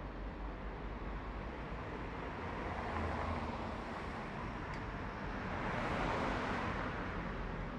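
Road noise from driving in city traffic: a steady rumble of tyres and engine with a wash of traffic noise, swelling louder about three seconds in and again around six seconds.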